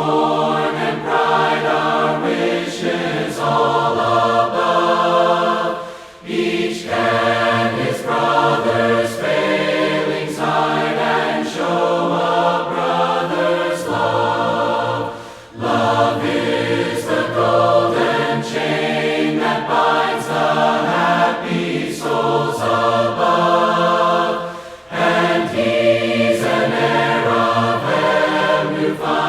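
A group of voices singing a hymn a cappella in harmony, in long phrases with brief pauses for breath about every nine seconds.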